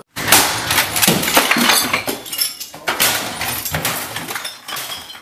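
Rapid clinking and breaking: many sharp impacts close together, loudest at the start and dying away near the end.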